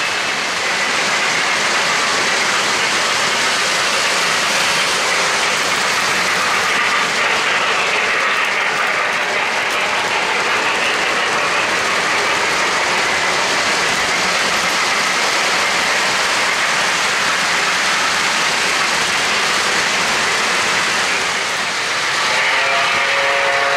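O-gauge model trains running on three-rail track: a steady rolling rattle of wheels on the rails. A wavering pitched tone joins near the end.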